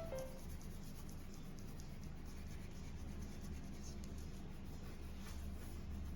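Faint scratching of a felt-tip sketch pen coloring in on paper in repeated strokes, over a low steady hum.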